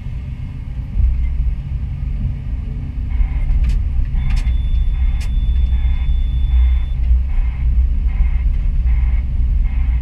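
Doosan DX225 crawler excavator's diesel engine working under hydraulic load, heard from inside the cab as a deep, steady rumble. From about three seconds in, a higher noise pulses on and off and there are a few sharp knocks as the bucket pushes backfill soil.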